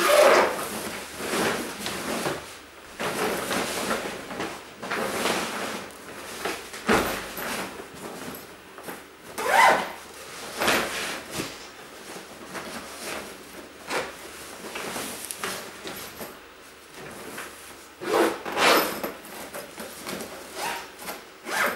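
Belongings being handled and packed into a box: irregular scraping, rustling and knocks, loudest at the start, about ten seconds in and again near the end.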